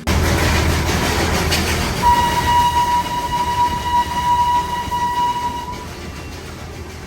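Darjeeling Himalayan Railway toy train sounding its whistle: one long, steady blast of about four seconds, beginning about two seconds in, over the noise of the train running.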